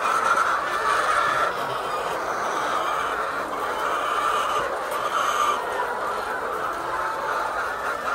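A large flock of layer chickens calling all at once in a steady, dense din of clucks and cheeps.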